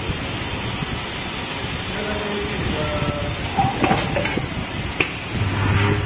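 Semi-automatic plug crimping machine with a vibration plate feeder running: a steady mechanical hiss with a few sharp clacks around the middle and again about five seconds in. A low, even hum starts near the end.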